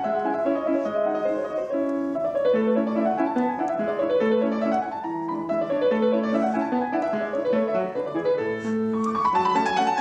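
Background piano music: flowing runs of notes rising and falling over held bass notes.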